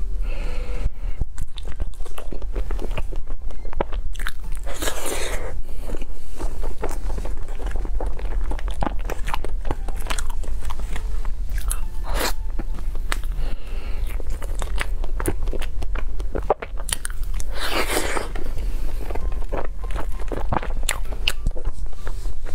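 Close-miked eating of soft cream cakes: biting and chewing with many small wet mouth clicks, picked up by a lapel microphone. Two longer hissy rushes stand out, about five seconds in and again about three-quarters through, over a steady low hum.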